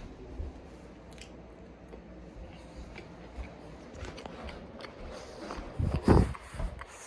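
Biting and chewing a cookie close to the microphone, with small crunching clicks and a louder burst near the end.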